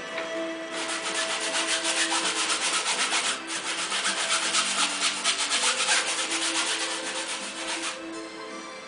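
Flat paintbrush scrubbing paint across a stretched canvas in quick back-and-forth strokes, stopping for a moment at the start, briefly about three and a half seconds in, and again near the end. Soft background music with held notes runs underneath.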